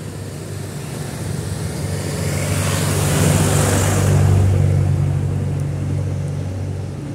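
A bus driving past close by: its engine hum and tyre noise swell to a peak about three to four seconds in, then fade away.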